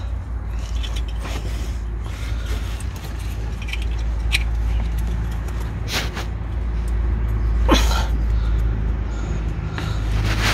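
A steady low machine rumble with a faint hum, broken by a few sharp clicks and knocks as the wiring connectors under the engine are handled.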